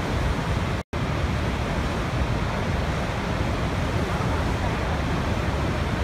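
Steady rushing of a large waterfall, Niagara's Horseshoe Falls, heard from its brink, heaviest in the low end. The sound cuts out for an instant about a second in.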